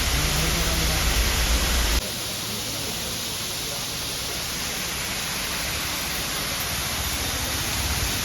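Steady rushing water of a roadside waterfall. About two seconds in, a cut drops the deep rumble and leaves a lighter, hissing rush.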